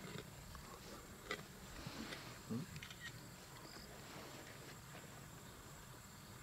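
Faint sounds of a lioness feeding on a buffalo carcass, scattered tearing and chewing noises, with two louder sharp sounds about one and two and a half seconds in.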